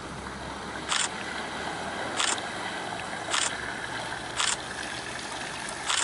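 Water splashing as a bicycle rides through a shallow flooded ford, with a short burst of splashing about once a second over a steady rush of water.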